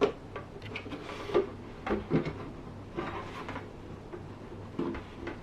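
Hand tools working on the fittings of an old wooden toolbox: scattered small knocks and clicks with a few short scrapes, as a part stuck fast with old varnish is worked loose.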